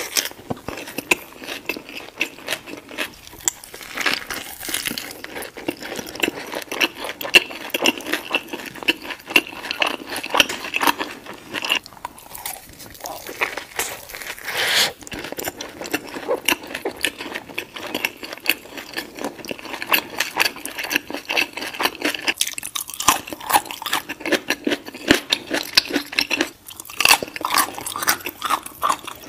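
Close-miked chewing and biting of a soft-tortilla street taco: a dense, continuous run of small crunches and mouth clicks.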